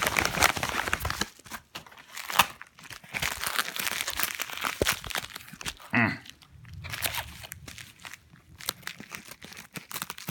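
Packaging being crinkled and torn open by hand as lighters are unwrapped from a parcel: an irregular run of crinkling and crackling with sharp clicks. A brief sound falling in pitch comes about six seconds in.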